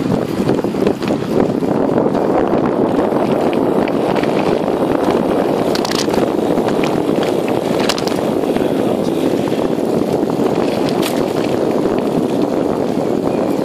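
Steady wind rushing over the microphone, mixed with tyre noise from a mountain bike rolling fast on tarmac, broken by three sharp clicks or rattles.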